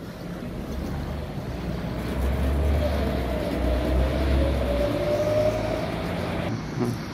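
A motor vehicle passing close by: a low rumble that builds over the first few seconds, with a whine that rises slightly in pitch, then drops off sharply near the end.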